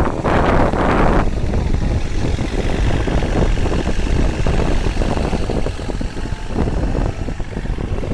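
Kobelco SK30-8 mini crawler excavator's diesel engine running steadily, with a louder burst of noise in about the first second.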